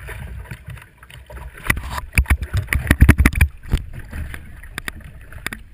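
Irregular knocks and bumps on the hull of an inboard hydroplane with its engine off, as it is poled and fended along a dock. A rapid cluster of knocks about two seconds in is the loudest part, over a low rumble from the water and the mic.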